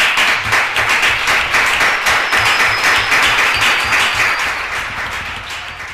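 Audience applauding, loud at first and slowly fading.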